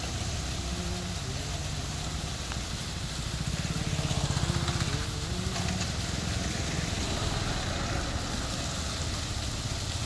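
Motorcycle engines running as bikes pass close by, loudest about four seconds in, over the steady hiss and splash of fountain water jets.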